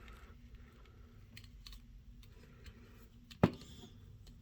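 Plastic action-figure parts and accessories being handled, with faint scattered clicks and one sharp, loud click about three and a half seconds in.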